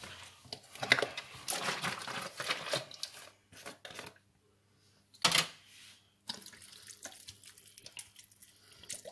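Soy milk being drizzled over shredded cabbage in a baking tray, splashing and crackling unevenly as it lands on the vegetables, with a short pause. A single loud knock about five seconds in.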